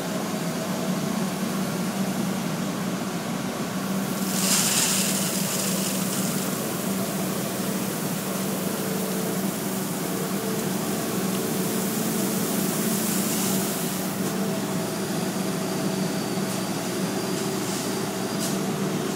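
Excavator's diesel engine running steadily while its bucket tips gravel into the trench. A rushing hiss rises over it about four seconds in and again for a few seconds past the middle.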